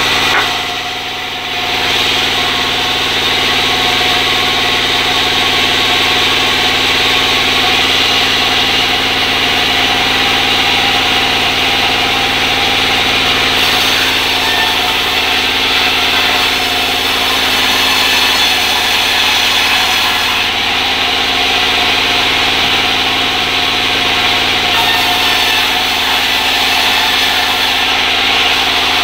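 Circular sawing machine (serkel) running steadily with its blade cutting sengon wood, a continuous machine drone with a high whine over it, dipping briefly about a second in.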